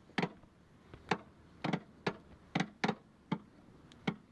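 Car jack being cranked up with its handle rod: a run of about eight sharp metal clicks at an uneven pace, roughly two a second.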